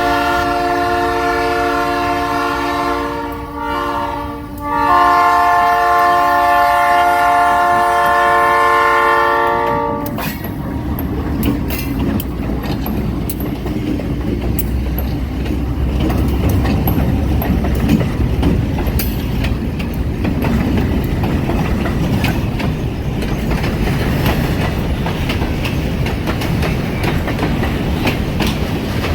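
Lead GE B39-8E diesel locomotive sounding its multi-chime air horn in two long blasts. It then rolls past with the engine rumbling, followed by the train's cars, their wheels clicking and rattling over the rail joints.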